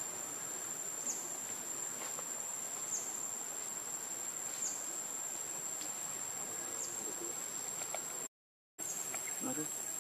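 A steady high-pitched insect drone with a brief dip in pitch every couple of seconds, over a soft outdoor hiss. The sound cuts out for about half a second near the end.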